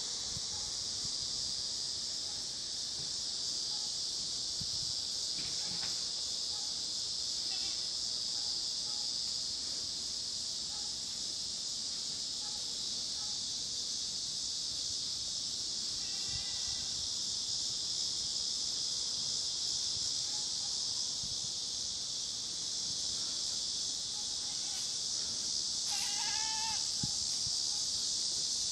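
Goats bleating a few separate times, the loudest and longest call near the end: separation calls from goats left behind as their keeper walks away. A steady high insect buzz runs underneath.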